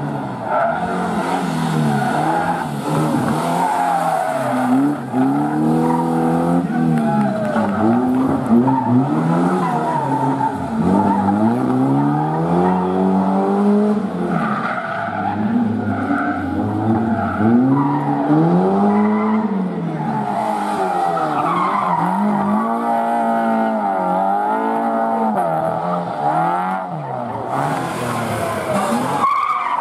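Competition cars driven flat out through a cone slalom: the engines rev up and drop back again and again as they swing between the cones, with tyres squealing. Near the end there is a burst of tyre-skid noise.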